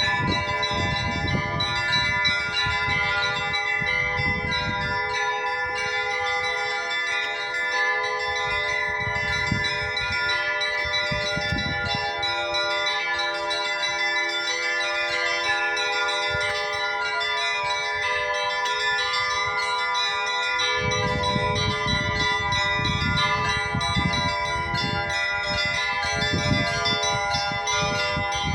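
Russian Orthodox church bells rung together in a continuous peal (zvon), many bells of different pitches ringing over one another.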